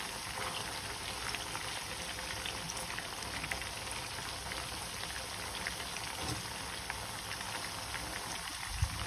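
Marinated chicken tikka pieces deep-frying in hot oil in a pan: a steady sizzle with fine crackling pops.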